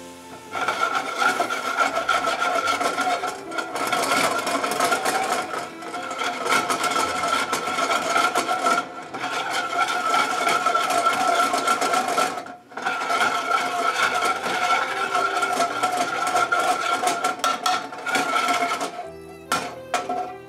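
Metal tongs scraping and stirring around an aluminium skillet, a rapid rasping as butter is worked into a white wine pan sauce. It breaks off briefly twice and dies away near the end.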